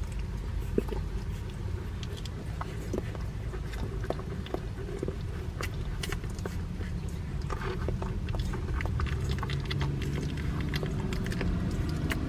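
Newborn San'in Shiba puppies suckling at their mother's teats: a continual patter of small wet clicks and smacks from their mouths, over a low steady rumble.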